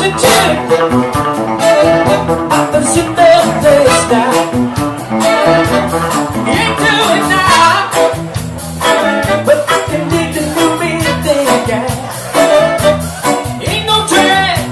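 Live funk and soul band playing an upbeat dance number, with a singer over the band.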